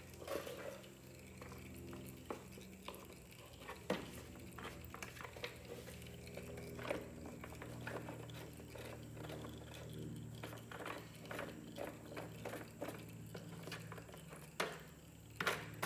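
Scattered light clicks and plastic knocks as the air filter and its black plastic cover are refitted and screwed down on a Kohler Courage 20 engine, over a faint steady hum.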